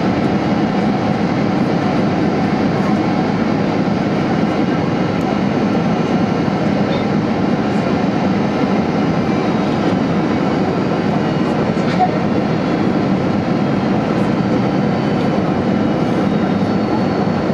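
Steady airliner cabin noise on final approach: the even roar of the engines and the airflow past the fuselage, heard from inside the cabin.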